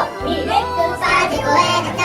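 Music with children singing.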